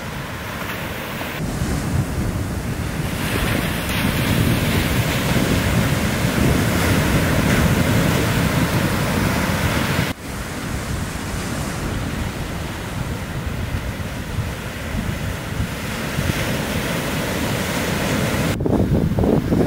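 Shorebreak waves breaking and washing up the sand, a continuous rush of surf with wind on the microphone. The sound breaks off abruptly about halfway through and again near the end, then picks straight up.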